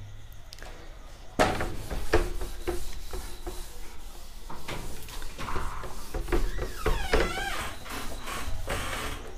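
Whiteboard duster rubbing across a whiteboard, wiping it clean in repeated strokes that begin about a second and a half in.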